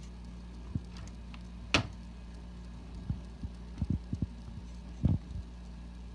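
Tweezers clicking and tapping against a plastic cup of water in irregular small knocks, one sharper click about two seconds in and a cluster of taps around four to five seconds in, over a steady low hum.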